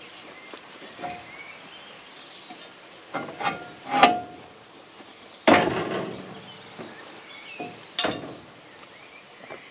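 Several metal clanks and knocks as a 4 mm mild-steel offcut table is handled and dropped into place on a sawbench frame. The loudest come about four seconds in and about five and a half seconds in, the second ringing briefly.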